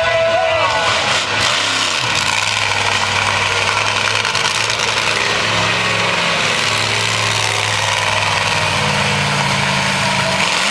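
Monster truck engine idling steadily with a low, even note; a slightly higher note joins about halfway through.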